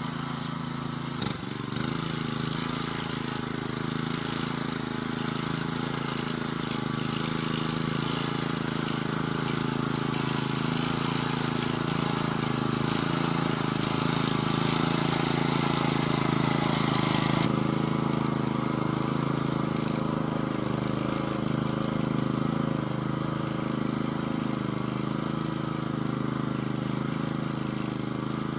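Engine of a Vari two-wheel walk-behind tractor running steadily under load as it pulls an AKY 356 tine cultivator through loose soil. A sharp click comes about a second in, and the engine grows louder toward the middle, then eases off as it moves away.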